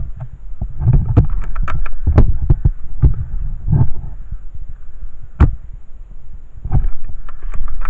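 Irregular low thumps and rubbing, with a few sharp clicks: handling and movement noise on a body-worn camera as the wearer shifts while crouched against a wall.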